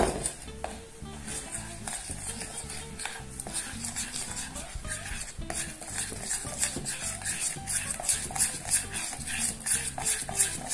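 A metal spoon stirring flour and water into a paste in a glass bowl, with rapid rhythmic scraping and clinking against the glass that gets quicker and more regular about halfway through.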